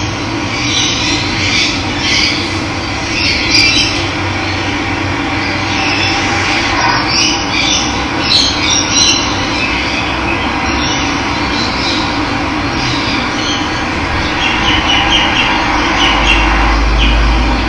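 Steady rush of running water with birds chirping and calling intermittently over it.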